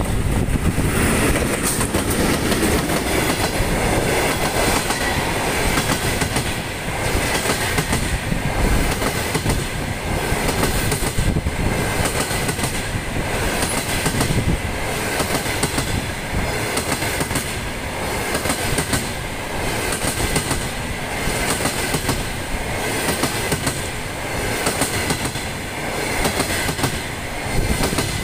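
Passenger train passing through the station without stopping: the VL10 electric locomotive goes by first, then a long string of double-deck coaches, their wheels clattering over the rail joints in a regular repeating rhythm.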